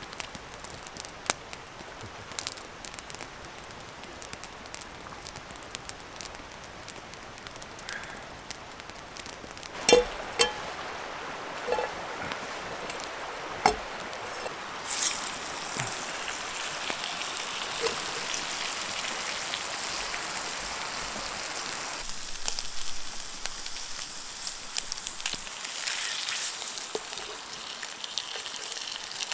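Faint crackling and a few clanks of pan and utensils. About halfway in, a frying pan starts sizzling steadily as the brook trout fries, and the sizzle grows stronger in the last third.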